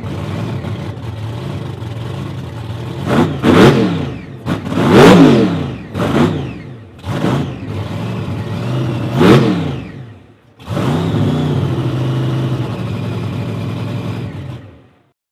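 Supercharged V8 with a Roots-type blower, idling roughly and revved hard by hand at the throttle, about seven sharp rise-and-fall blips. Later it runs at a steady fast idle, then cuts off abruptly near the end.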